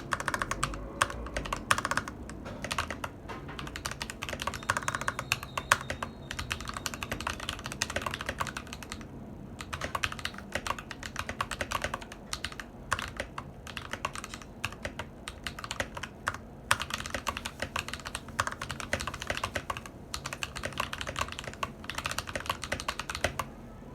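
Typing on a modded Anne Pro 2 mechanical keyboard with lubed Akko CS Lavender Purple tactile switches. The keyboard has been tape-modded and dampened with EVA foam, and its stabilizers are lubed and clipped. Quick, continuous keystrokes, with a brief pause about nine seconds in.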